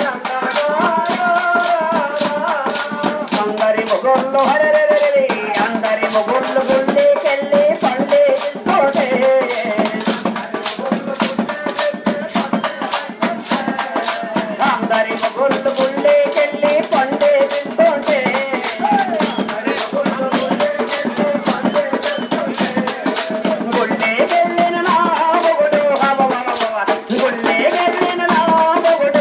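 Bhajan music: a steady, fast beat of jingling, rattling hand percussion, about three strikes a second, under a wavering melody line.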